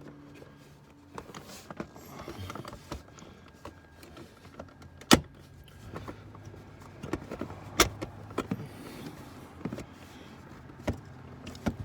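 Sharp knocks and clicks of plastic trim being pressed and banged into place in a car's battery compartment, the two loudest about five and eight seconds in, over a faint low hum.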